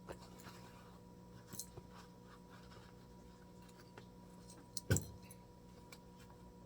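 Faint handling clicks and one sharp knock just before five seconds in, over a steady electrical hum.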